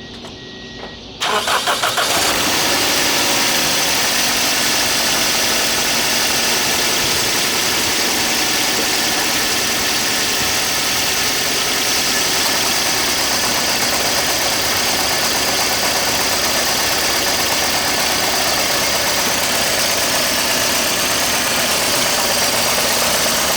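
2004 Toyota Corolla four-cylinder engine starting about a second in, then idling steadily with a misfire: cylinder one is not firing.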